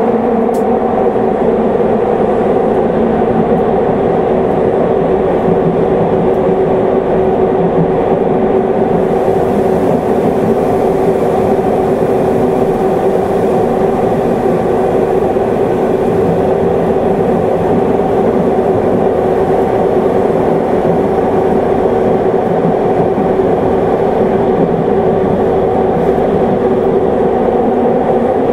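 Tokyo Metro Hanzomon Line subway train running at steady speed through its tunnel, heard from inside the passenger car: a loud, even rumble of wheels and running gear with a steady hum.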